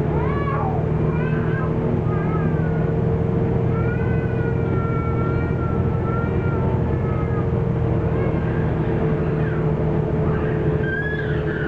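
Renault PR112 city bus driving, heard from the cab: a steady diesel drone with road noise, overlaid by high-pitched whines that waver and glide up and down in pitch, some brief and one held for a couple of seconds.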